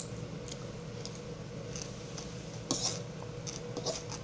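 Metal spoon scraping and clinking against a ceramic bowl in a few short, scattered clicks, the loudest about two-thirds of the way through, over a steady low hum.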